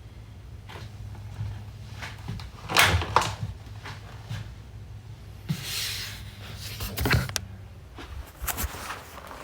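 Kitchen handling sounds: a few sharp knocks and clacks, the loudest two close together about three seconds in and another pair about seven seconds in, with a brief rustling hiss just past halfway, over a steady low hum.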